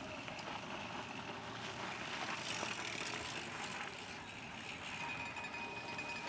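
Mountain bikes riding past on a dirt trail: a steady noise of tyres on the dirt, with a few faint clicks.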